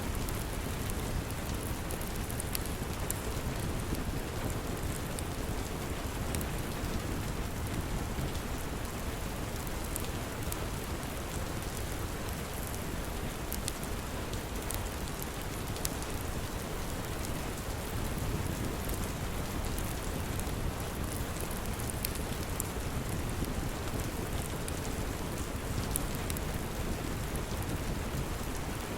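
Steady heavy rain with a low rumble underneath, and scattered small sharp crackles from a log fire.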